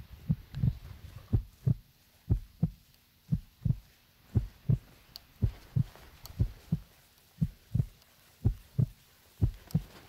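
Footsteps of the person filming, walking on a dirt trail: low, regular thuds carried into the handheld camera, coming in pairs about once a second.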